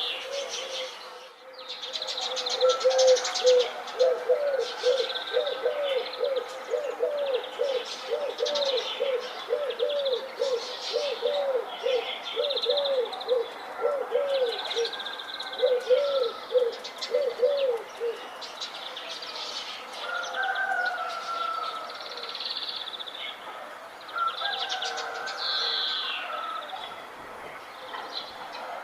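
Several birds chirping and singing together in a dawn chorus of short, high notes and trills. Under them a low call repeats about twice a second for some fifteen seconds, then stops.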